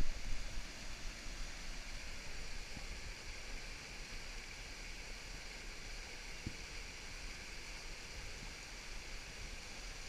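River water rushing over a small weir and through shallow rocky rapids, a steady hiss of white water, with a brief knock at the very start.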